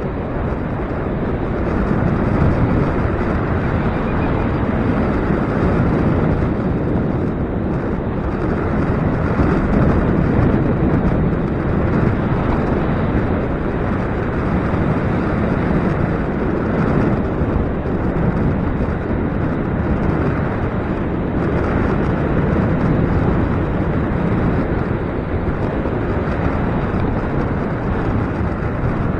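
Gusty wind buffeting the microphone: a steady, deep rumble that swells and eases with the gusts.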